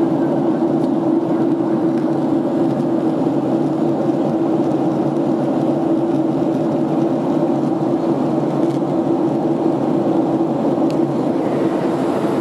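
Steady roar of a Boeing 767's engines and rushing air heard inside the passenger cabin during the approach to landing, with a constant low drone under it.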